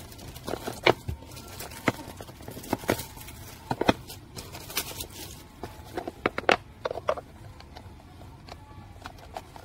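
Clear plastic shrink-wrap being picked at and peeled off a boxed CD album by hand: irregular crinkles and sharp crackles, most of them in the first seven seconds.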